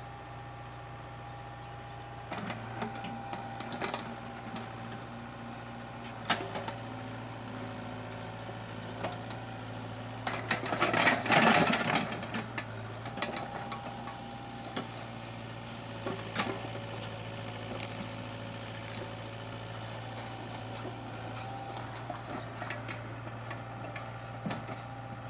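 Sumitomo mini excavator's diesel engine running steadily at work, with scattered knocks and clanks, and a louder rough grinding stretch about halfway through.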